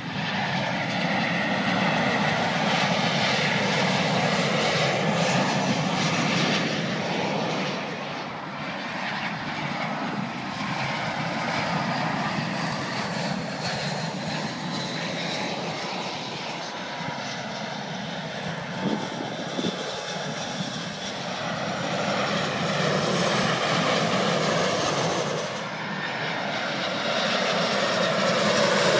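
Twin-engine jet airliners passing low overhead on final approach, one after another. Continuous jet engine noise with a high whine that falls in pitch as each plane goes by. The sound changes abruptly twice as one plane gives way to the next.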